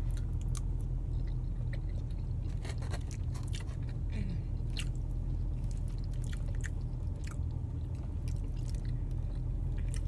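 A person chewing cold teriyaki salmon close to the microphone: irregular wet mouth clicks and smacks, over a steady low hum.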